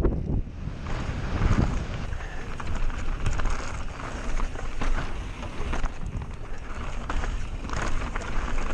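Wind buffeting the microphone of a camera riding a descending mountain bike, with a low rumble of tyres rolling over dirt singletrack and frequent short knocks and rattles from the bike over bumps.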